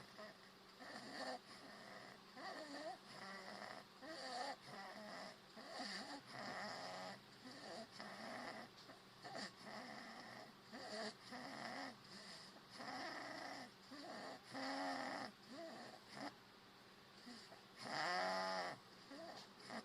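A sleeping man snoring in short, uneven breaths, with a longer and louder pitched snore near the end.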